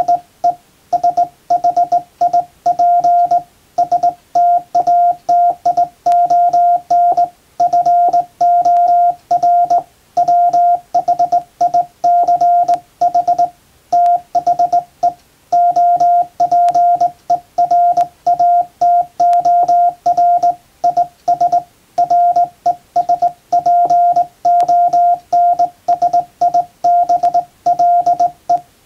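Hand-sent Morse code: a steady tone near 700 Hz keyed on and off in short dots and longer dashes, with gaps between letters and words. It is keyed on a JRC KY-3A straight key, sending English plain-language text at a steady pace.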